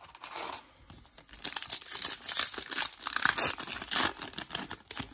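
Foil trading-card pack wrapper crinkling and tearing as it is ripped open by hand. A softer rustle at first, then loud, dense crackling from about a second and a half in.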